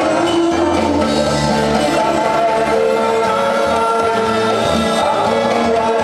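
A man singing into a handheld microphone over amplified instrumental music with a bass line, during a sound check.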